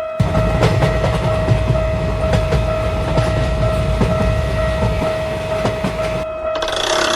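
Train passing, its wheels clattering over the rail joints, starting just after the beginning and dropping away about six seconds in. A steady high tone sounds over it throughout.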